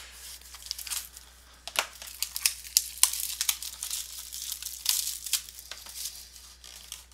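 Plastic wrapping crinkling and tearing in irregular crackles as a sealed box of baseball cards is opened.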